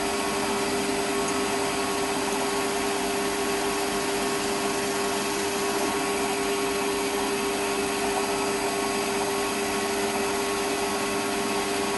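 Small metal lathe running steadily while taking a facing cut across the end of a metal workpiece: an even motor and gear hum with one held tone, under the hiss of the cut.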